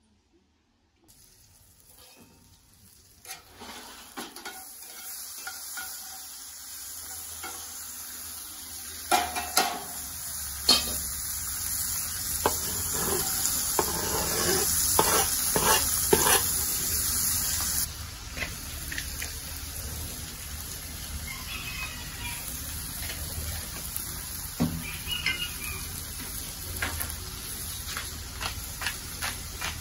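Diced peppers and tomatoes sizzling in a cast-iron skillet over charcoal, with a utensil scraping and knocking against the pan as they are stirred. The sizzle starts about a second in and builds, is loudest in the middle with a run of knocks and scrapes, and drops to a quieter sizzle with occasional clicks about two thirds of the way through.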